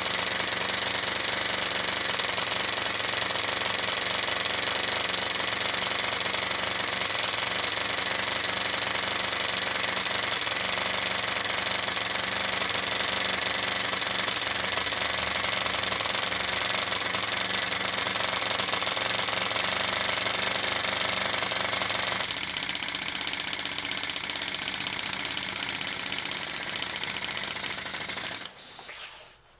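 Halo Liney five-cylinder radial live steam model engine running fast, a steady rapid clatter of its exhaust beats and valve gear with a hiss over it. The sound cuts off suddenly near the end.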